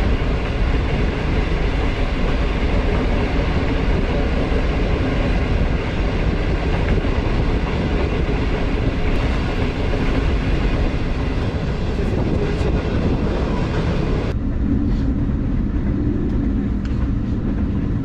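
Passenger train running along the track: a steady, loud rumble of wheels on rail. About fourteen seconds in, the higher part of the noise cuts off abruptly and the sound turns duller.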